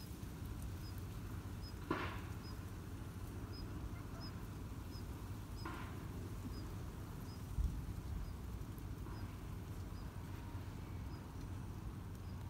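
Outdoor ambience: a steady low rumble with a faint, short high chirp repeating about every two-thirds of a second, and a couple of brief rustling swishes and a low bump.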